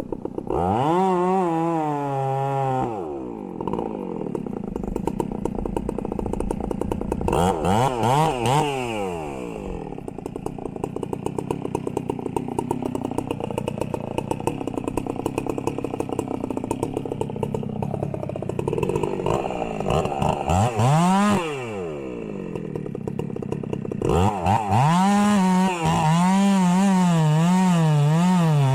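Chainsaw engine revving up and dropping back in several bursts, running lower between them, then held at high revs with a wavering pitch for the last few seconds.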